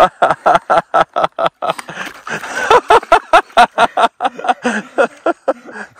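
A man laughing hard in quick bursts of breathy 'ha-ha-ha', loudest about three seconds in.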